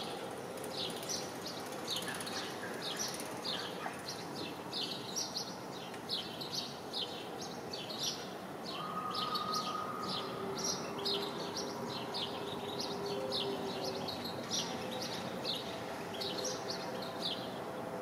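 Small songbirds chirping outdoors: short, high chirps repeated about twice a second without pause, over steady background noise. A faint steady tone sounds for a couple of seconds near the middle.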